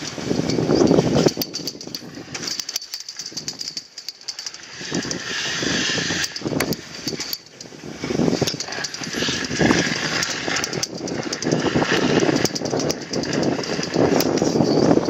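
Snowboard sliding and scraping over packed snow, an uneven rushing noise with a quieter stretch about three seconds in.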